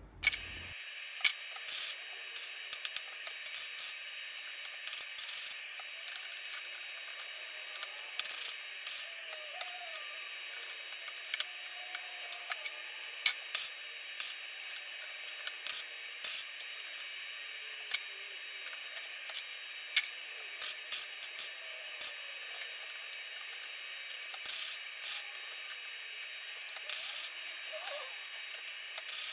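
Welding arc on the steel handle brackets of a lawnmower: a steady hiss broken by many short, irregular bursts of crackling, each under a second, as tack and short welds are laid.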